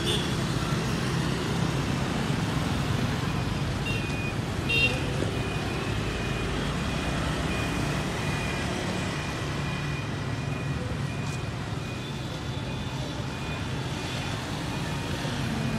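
Street traffic with motorbikes and cars passing: a steady rumble of engines and tyres. A short horn toot sounds about five seconds in.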